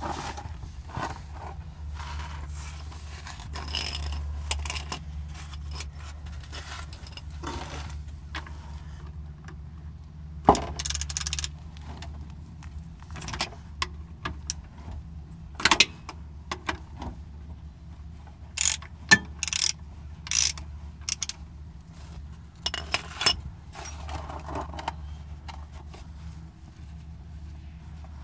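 Irregular sharp metallic clinks and knocks of gloved hands and tools working on a car's underside during an oil change, over a steady low hum.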